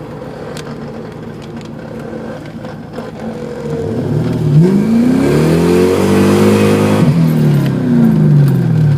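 1996 Mustang SVT Cobra's 4.6-litre DOHC V8 heard from inside the cabin, revving up hard under acceleration about four seconds in, holding high revs, then winding back down near the end.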